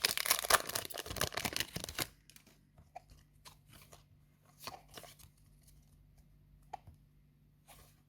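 A foil Yu-Gi-Oh booster pack wrapper being torn open: a dense crinkling tear for about two seconds, then only scattered soft taps and rustles.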